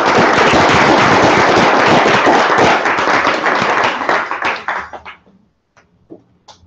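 Audience applauding: dense clapping that thins out after about four seconds and dies away, with a few last scattered claps near the end.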